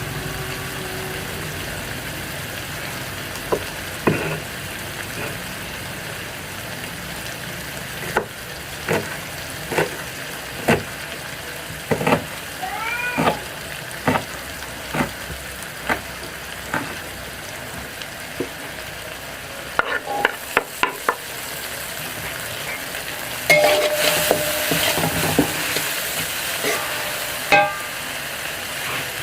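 Food frying in hot oil in a pan, with a steady sizzle and frequent sharp clicks and scrapes of a spatula stirring it. About two-thirds of the way through, the sizzle briefly grows louder.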